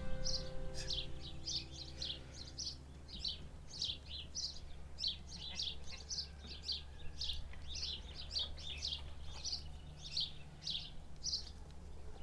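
A small songbird chirping over and over, short high chirps about two or three a second, over a steady low rumble of background noise.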